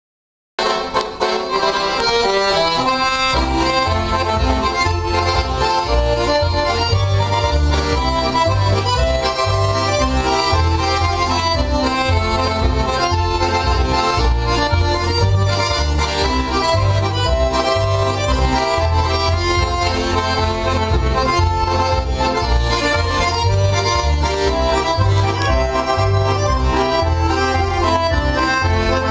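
Button accordion playing a traditional tune, melody over a steady, alternating bass, starting about half a second in.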